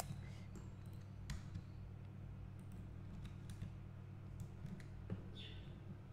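A few scattered sharp clicks of computer keys and a mouse, the first and loudest right at the start, over a steady low hum.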